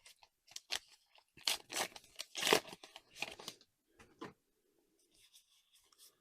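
Trading-card booster pack wrapper being opened by hand: a run of short tearing and crinkling noises, loudest about two and a half seconds in, then a few softer rustles.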